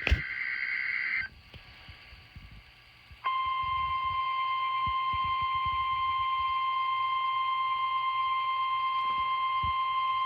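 NOAA Weather Radio weekly test signal: the tail of a SAME digital header burst, a harsh buzzing data sound with a click right at the start, cuts off after about a second. After about two seconds of quiet, the steady 1050 Hz warning alarm tone comes on and holds.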